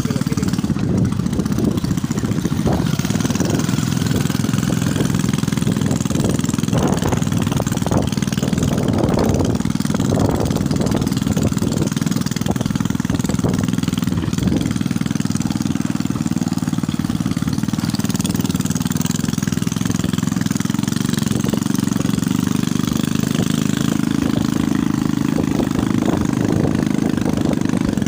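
Small motorcycle engine running steadily while riding along a road, with wind and road noise over it.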